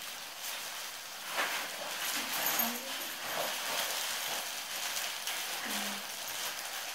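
Plastic packaging crinkling and rustling as it is handled, an irregular crackly rustle with a few sharper crackles. Brief faint voices murmur a couple of times.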